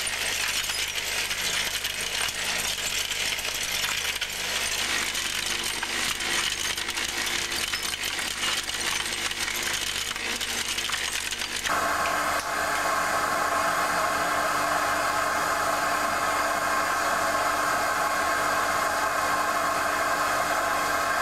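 Cement mixer drum tipping crushed glass into a metal wheelbarrow: a dense, continuous clinking rattle of glass fragments. About twelve seconds in it cuts abruptly to a steady, even hum with a low tone.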